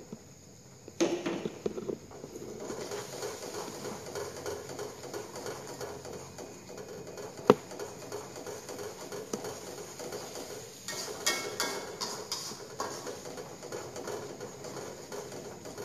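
Blended chilli spice paste sizzling in oil in a steel wok as it is stir-fried. A metal spatula scrapes and taps against the pan, starting about a second in, with one sharp tap about seven and a half seconds in.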